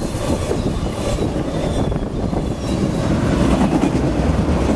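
Intermodal freight train's well cars, loaded with containers and trailers, rolling past: a steady low rumble with the wheels clacking over the rail joints.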